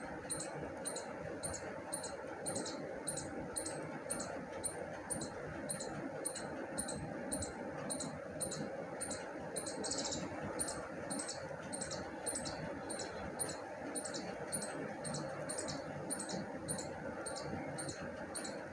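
Metal knitting needles clicking softly against each other as stitches are worked, in an even rhythm of about two clicks a second, with a faint rustle of yarn.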